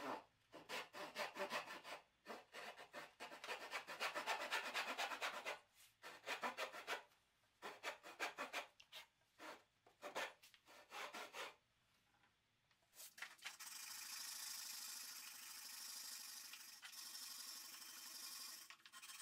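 Hand saw cutting through a wooden board at an angle: quick back-and-forth rasping strokes with a few short pauses for about eleven seconds. After a brief pause, a steadier continuous scraping hiss follows.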